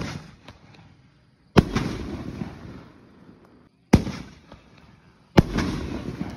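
Two fireworks canister shells fired one after the other. Each leaves its mortar tube with a sharp bang, and about a second and a half later bursts overhead with another loud bang, followed by a rush of noise that fades over a second or so.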